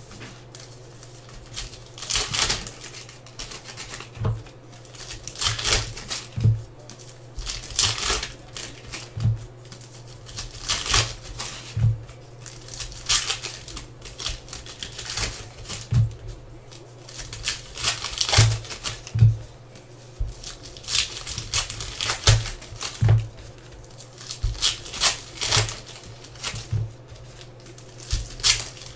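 Trading-card pack wrappers being torn open and crinkled by hand, in irregular crackling rustles every second or so.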